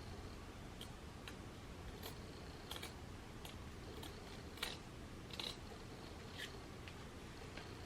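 Scissors snipping through lace on a wig: faint, irregular short snips, the sharpest about four and a half seconds in, over a low steady hum.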